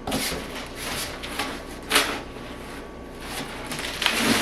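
Heavy, stiff cardboard packaging being wrestled and pulled open: scraping and rustling, with a sharp snap about two seconds in and another near the end.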